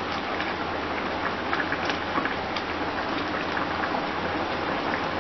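Rice boiling in chicken stock in a wok: a steady bubbling with small scattered pops.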